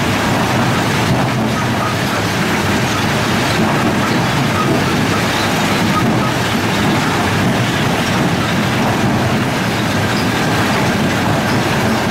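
Steady din of a running rock-crushing plant, the Lippmann 3862 single-toggle jaw crusher working, with no let-up.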